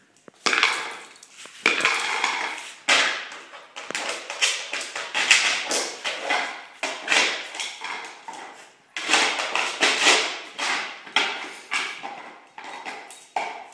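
A small round lid skidding, scraping and clattering across a concrete garage floor as a German Shorthaired Pointer swats and pounces on it with her paws, in repeated, irregular knocks and scrapes.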